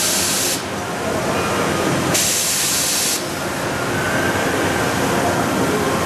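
Johnford DMC-3000 gantry-type vertical machining center running a program dry, a steady mechanical din. Two hissing blasts of air, each about a second long, come just at the start and again about two seconds in.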